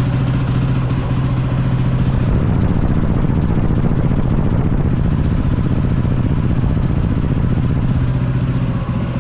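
KTM 500 EXC's single-cylinder four-stroke engine running steadily, loud, then shut off near the end.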